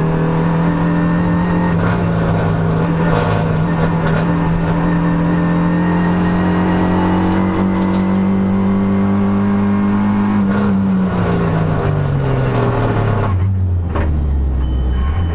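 Race car engine heard from inside its roll-caged cabin, held at high revs with the pitch creeping slowly up for about ten seconds. The revs then fall away over a few seconds and settle into a low drone near the end.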